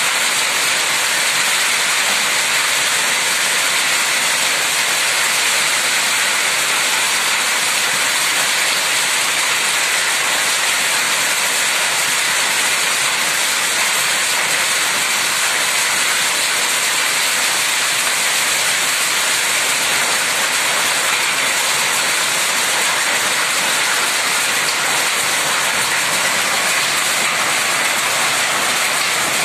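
Hail and heavy rain pelting down in a dense, steady hiss that does not let up.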